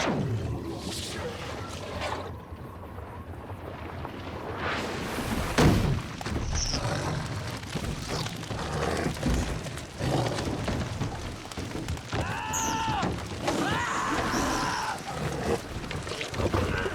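Film soundtrack of the flying fish scene: a jumble of thuds and knocks, with one heavy hit about six seconds in. Near the end come two pitched cries that rise and fall.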